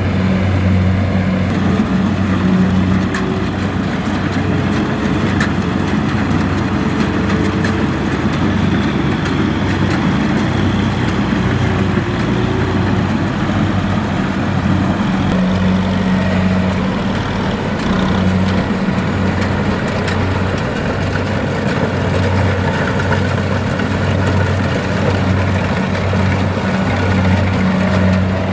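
Tracked rice combine harvester running steadily as it cuts and threshes rice, its diesel engine holding an even hum under the clatter of the cutting and threshing machinery.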